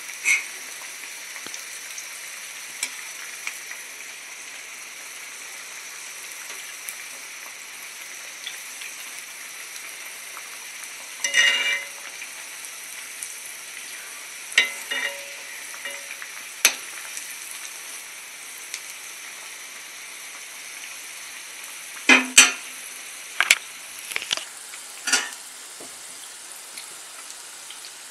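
Masala vadas of soaked dried-pea dal deep-frying in hot oil, sizzling steadily. From about the middle on there are several short, sharp clinks and scrapes as a perforated metal ladle turns them against the pan.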